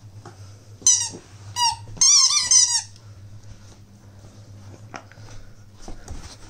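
Squeaky rubber donut dog toy squeaked by a dog's bites: two short squeaks about a second in, then a longer wavering squeak around two seconds in, followed by small knocks of the toy and paws on the carpet.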